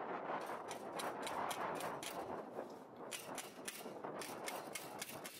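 Hand tool clicking on the metal leg of a windmill tower, in short irregular runs of sharp clicks, with wind noise behind.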